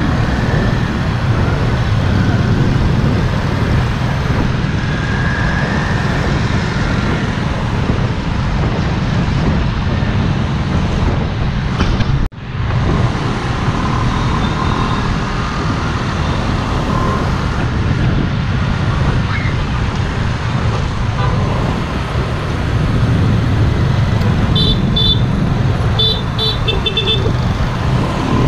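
Steady road traffic noise with a heavy low rumble. It cuts out for an instant about halfway through. Near the end a vehicle horn toots in several short beeps.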